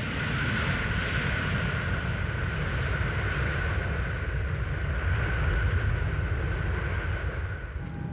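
Boeing 747 on the runway: a steady jet-engine whine over a low rumble of engines and rolling gear during a heavy-braking anti-skid test. It eases off slightly near the end.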